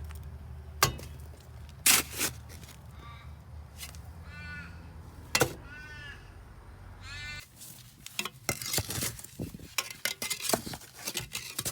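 A metal spade knocking and scraping in broken concrete rubble and sand: a few sharp strikes in the first half, then quicker scraping and clinking. A crow caws three times in the background, and a low hum runs under the first seven seconds or so.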